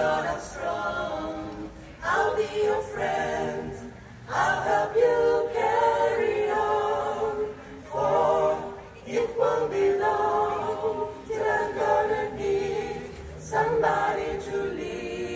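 Mixed vocal group of women's and men's voices singing a cappella in close harmony, in phrases of a few seconds with short breaks between them.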